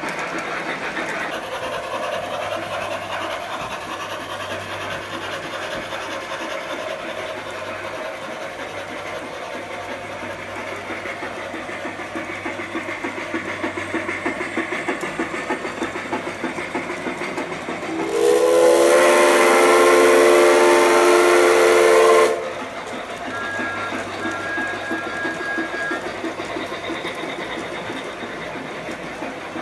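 Sound-equipped large-scale model trains running around the track. About 18 seconds in, one model's sound decoder plays a loud chime steam whistle, one blast of about four seconds. A faint, higher, short whistle follows a couple of seconds later.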